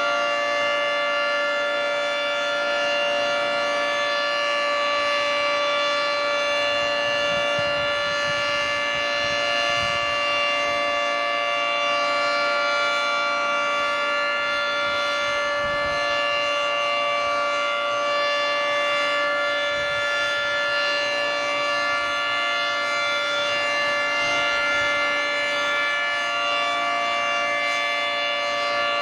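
Federal Signal 3T22 dual-tone tornado siren, with 10- and 12-port rotors, sounding a steady full-alert tone: a very loud held chord of several tones with no rise or fall in pitch.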